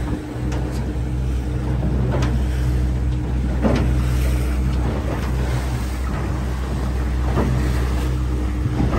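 Motorboat engine running steadily with a low hum, with water rushing past the hull and waves slapping against it a few times. Wind buffets the microphone.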